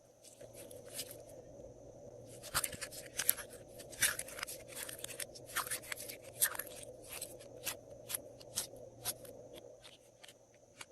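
Glossy slime being squeezed and kneaded by hand, giving a quick irregular run of sharp clicks and pops that thickens about two seconds in and thins out near the end.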